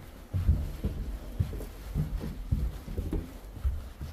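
Muffled footsteps, a run of low thumps roughly every half second.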